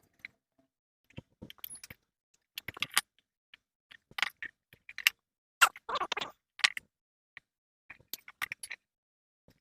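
Irregular clicks, taps and short rattles of small hard parts being handled during an electric kettle repair, busiest in the middle.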